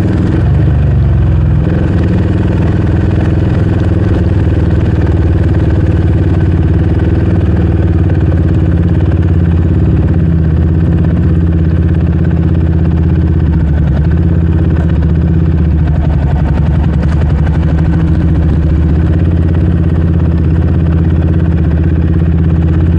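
Yamaha Raptor 700R sport quad's single-cylinder four-stroke engine running at low, steady revs while the quad rolls slowly over a dirt track, with a brief shift in pitch about a second in.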